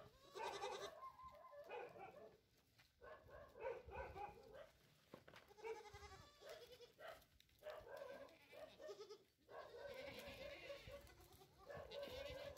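Osmanabadi goats and kids bleating over and over, about seven quavering calls in quick succession.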